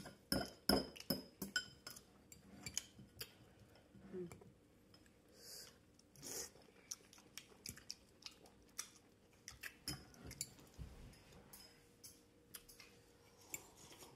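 Metal fork clicking and scraping against a ceramic bowl, with close-up chewing of cooked broccoli and carrots. The clicks are soft and irregular.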